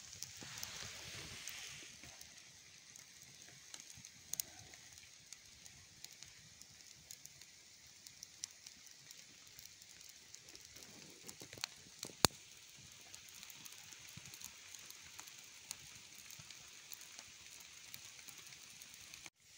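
Campfire of damp branches burning with a soft hiss and scattered sharp crackles and pops, one louder pop about twelve seconds in.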